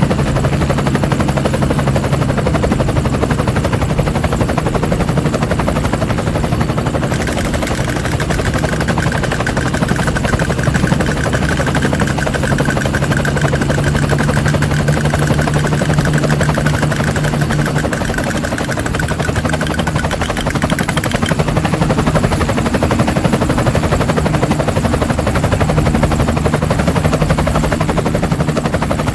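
Battery-operated plastic toy helicopter running, its motor spinning the rotor with a steady, fast rattle and hum.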